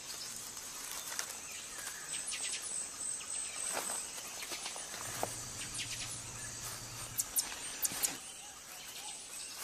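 Night rainforest chorus of insects and frogs: a steady high-pitched insect trill with scattered short chirps, and a low hum for about two seconds in the middle.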